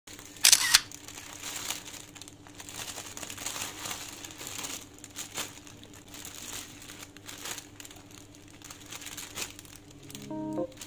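Thin plastic produce bags crinkling and rustling as hands handle and unwrap bunches of bok choy, with a loud crackle about half a second in and irregular rustles after.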